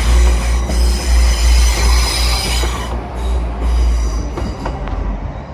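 Two coupled Class 185 diesel multiple units pulling out, their Cummins diesel engines giving a loud low rumble, very loud. A high-pitched squeal rings over the rumble and dies away about three seconds in, and the rumble fades toward the end as the train moves off.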